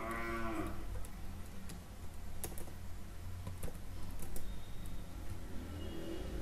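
A few scattered keystrokes on a computer keyboard, over a steady low hum.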